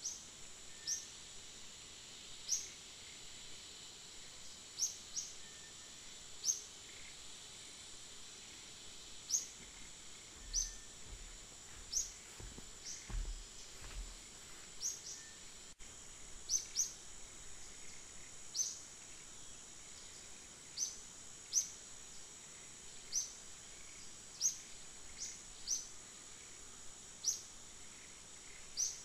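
Outdoor natural ambience: a steady high-pitched insect drone with short, sharp chirps every second or two. A few brief low rumbles near the middle.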